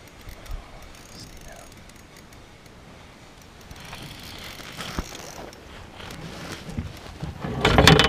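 Fishing reel being cranked to retrieve a lure, a light mechanical whirring and clicking, with a sharp click about five seconds in and a louder burst of clatter near the end.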